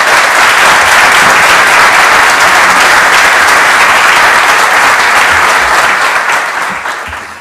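Audience applauding: dense, steady clapping from a large crowd that fades out near the end.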